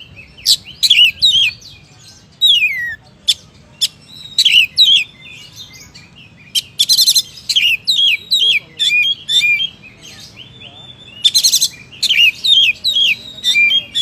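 Male Oriental magpie-robin (kacer) singing loudly: a varied run of short whistled notes that mostly slide down in pitch, broken twice, about seven and eleven seconds in, by a harsh, rapid rattling phrase.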